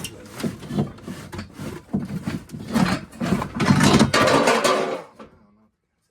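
A drawer being worked, with a run of knocks, scrapes and rattles of things inside it. The clatter is loudest near the end and stops suddenly about five seconds in.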